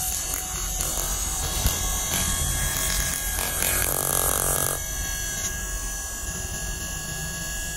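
Small DC electric motor running freely, its shaft spinning with a steady whirring whine, louder and buzzier for about a second and a half near the middle.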